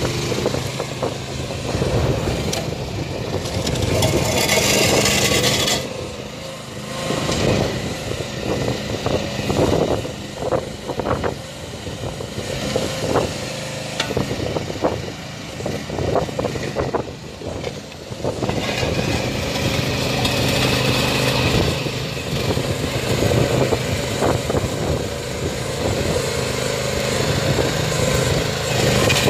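The small engine of an AGROTK QH12 mini excavator runs steadily as the machine tracks across gravel with its dozer blade down, the tracks and blade scraping the gravel. Irregular knocks come through the middle of the stretch.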